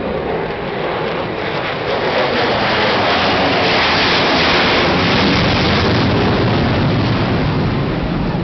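B-1B Lancer bomber's four turbofan jet engines in a low flyby: a loud rushing jet noise that swells to its loudest about four seconds in, then turns to a deeper rumble as the aircraft passes and moves away.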